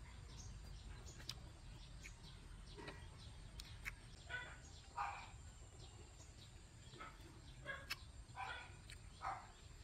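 Faint bird calls now and then over a quiet background, a few short calls clustered about halfway through and again near the end.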